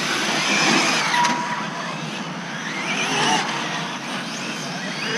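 Associated SR7 1/7-scale on-road RC car running laps, its electric motor whining up and down in pitch as it accelerates down the straights and slows for the corners, loudest as it passes about one and three seconds in.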